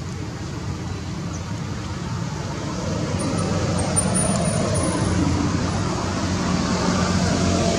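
Steady low rumble of a motor vehicle, growing louder about halfway through.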